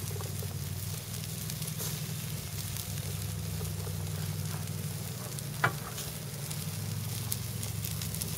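Chicken pieces sizzling on a grill grate over an open fire, with scattered crackles and one sharp pop about halfway through, over a steady low hum.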